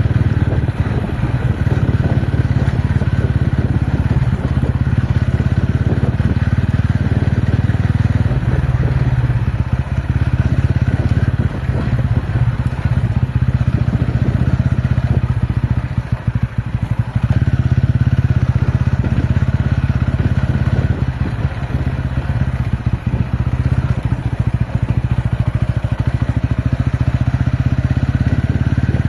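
TVS Ronin motorcycle's single-cylinder engine running while being ridden, a steady low rumble that eases briefly about sixteen seconds in.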